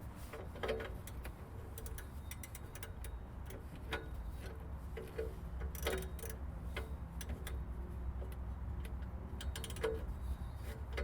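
Ratchet working an oxygen-sensor wrench, clicking in short irregular runs as the O2 sensor is unscrewed from the exhaust pipe.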